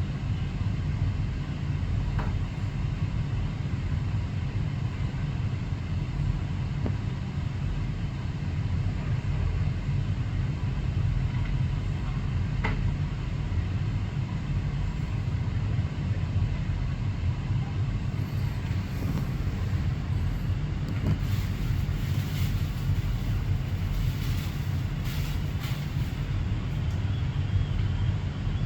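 Steady low rumble of a running vehicle, even throughout, with a few faint ticks.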